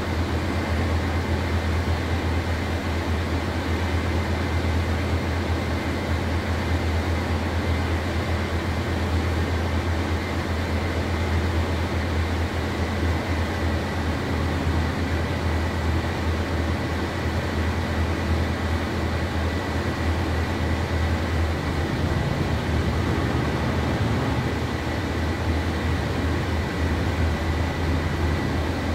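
Steady low rumble of a regional bus's engine and running gear heard from inside the passenger cabin, with a faint, steady high whine.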